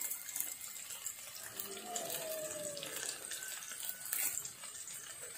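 Sliced shallots and green chillies frying in oil in a steel pan, a steady sizzling hiss. A faint falling tone sounds about two seconds in.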